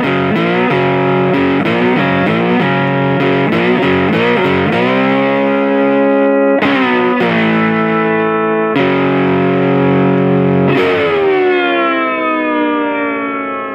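Intro music: a distorted electric guitar playing chords, changing quickly at first, then held chords, the last one left ringing and fading out near the end.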